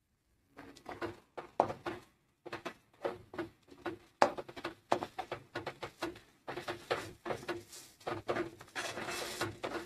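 A steel spatula scrapes and knocks against a metal kadai while stirring and turning soya keema. The strokes come in quick, irregular runs starting about half a second in, with short pauses.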